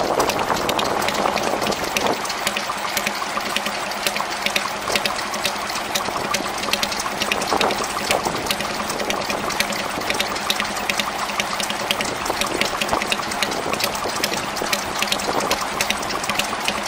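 Small vintage Stuart Turner stationary engine running and driving a water pump, a rapid even ticking over the gush and splash of water pouring from the pump's outlet hose into a bucket.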